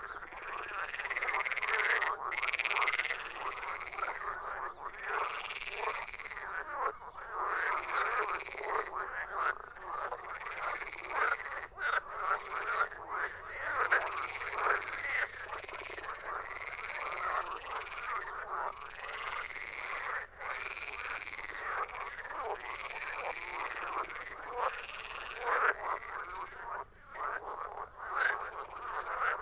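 A chorus of frogs croaking, many calls overlapping in a dense, unbroken rhythm.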